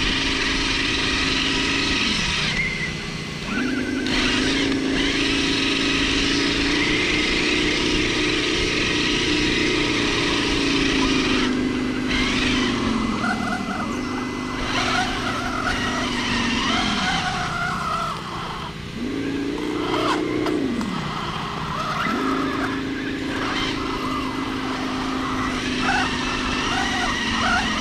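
Electric motor and gearbox of a scale RC crawler truck whining as it drives over rough dirt. The pitch rises and falls with the throttle and drops away to a brief stop about three times before picking up again.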